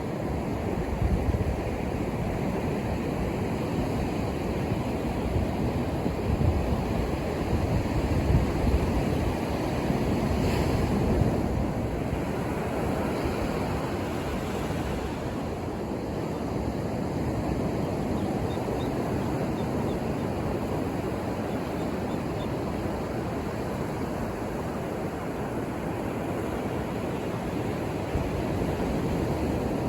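Ocean surf washing onto the shore in a steady rush, swelling louder for a few seconds partway through as a wave breaks.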